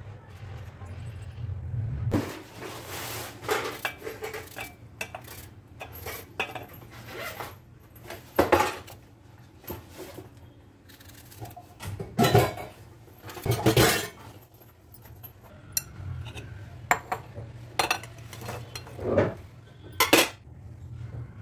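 Steel dishes and cutlery clinking and clattering in a run of irregular knocks while cut apple is handled, over a low steady hum.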